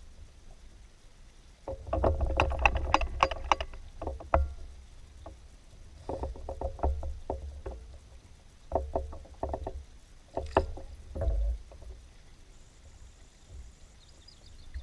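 Clusters of sharp clicking and knocking with low thumps, gear rattling and bumping against a kayak's hull.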